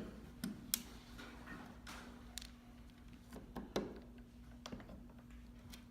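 Small, irregular clicks and taps of a screw being set and driven in by hand to lock the clutch onto the headrail of a Roman blind system.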